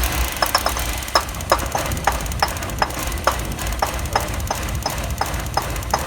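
Chevy 4.3 V6 engine running at idle with a series of sharp, short clicks, about two to three a second, as water is put on the ignition coil and distributor cap to test for moisture-related ignition failure.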